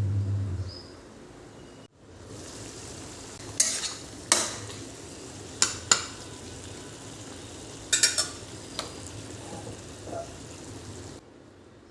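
Food sizzling as it fries in a pan, while a metal spatula or spoon stirs it and knocks against the pan several times. A low hum at the very start stops within the first second.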